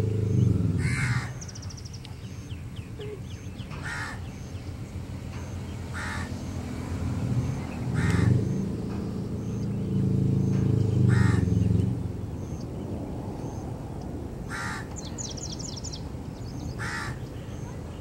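Harsh single bird calls, repeated about every two to three seconds, with two faint high trills from a small bird. A low motor drone is loud at the start, fades about a second in, and swells again in the middle.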